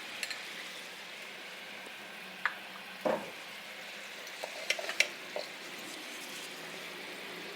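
Salted water with a little coconut oil heating toward the boil in a pan on the stove: a steady hiss, with a few light utensil clinks in the middle.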